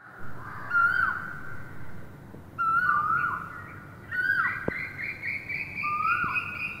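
Birds calling: four whistled calls that rise and then drop, spaced a second or two apart, with a faster run of higher chirping notes joining about four seconds in, over a steady hiss.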